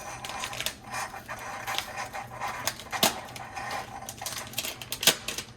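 A run of irregular clicks and rustles, with two sharper knocks about three and five seconds in.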